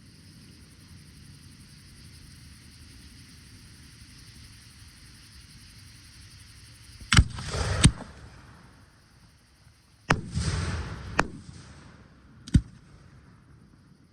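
Aerial fireworks bursting. After several seconds of quiet background come a sharp bang and a hissing crackle that ends in a second bang, then about two seconds later another bang, a longer crackle and a bang, and a single sharp report near the end.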